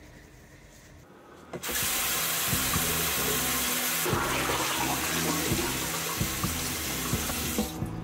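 Bathroom sink's single-lever mixer tap running into the basin: a steady splashing hiss that starts about one and a half seconds in, with a short break about four seconds in, and stops just before the end.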